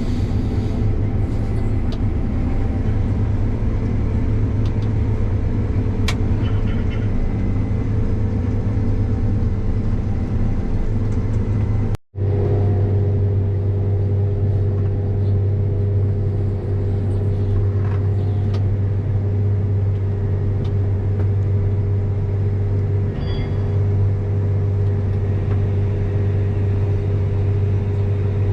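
Combine harvester running with a steady, even machine drone. The sound drops out for an instant about twelve seconds in.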